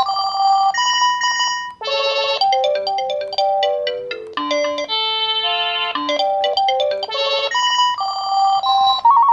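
Panasonic KX-PRS110 cordless phone handset playing a series of its built-in electronic ringtones through its speaker. Short beeping trills alternate with a longer stepping melody in the middle, with the tune changing several times as the ringtones are stepped through.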